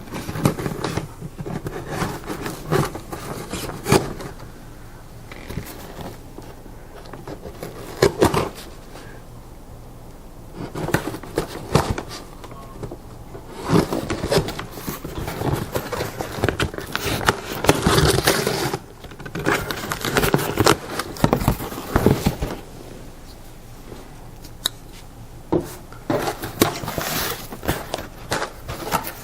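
Cardboard shipping box being opened and unpacked by hand: irregular scraping and rustling of cardboard and packing, with sharp knocks now and then.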